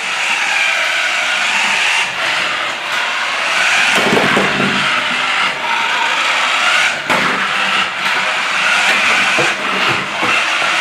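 Radio-controlled toy Porsche 918 Spyder whirring steadily as it drives across a hardwood floor: its small electric motor and gears, with the pitch wavering as it speeds up and slows. A few light knocks come in along the way.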